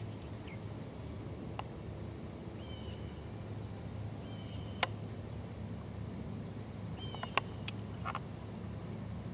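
Open-air golf-course ambience: a steady low hum with short high chirps every second or two and a few sharp clicks, the loudest about five seconds in and another near seven and a half.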